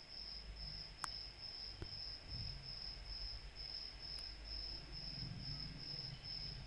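Faint, steady insect chirping, a high-pitched note pulsing evenly about three times a second, with one sharp click about a second in.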